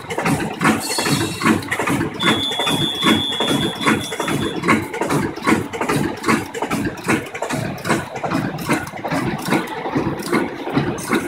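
Automatic soft loop and patch handle bag making machine running, a rhythmic clatter of repeated machine strokes, roughly two a second. About two seconds in, a high steady tone sounds over it for about two and a half seconds.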